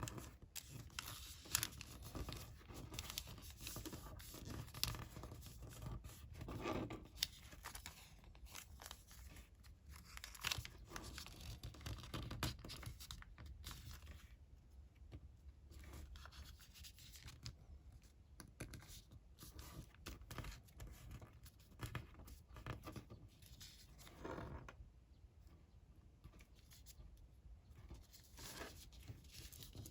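Colored origami paper being folded and creased by hand: irregular soft rustling, crinkling and scraping of the paper, with sharp little clicks now and then.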